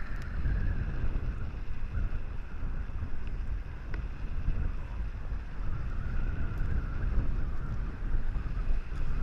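Wind buffeting the microphone outdoors: an uneven low rumble that goes on throughout, with a fainter steady hiss above it.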